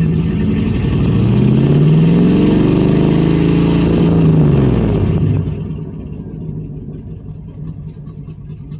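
1985 Chevrolet Suburban's carbureted gasoline V8 being revved by pumping the gas pedal: it climbs in pitch, holds high for a couple of seconds, then falls back about five seconds in and settles to a quieter, lower idle.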